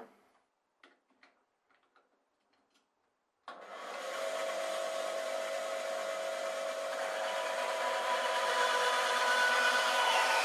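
Bandsaw switched on about three and a half seconds in, then running steadily, a hum with a whine over it that grows a little louder. Before it starts, only a few faint clicks.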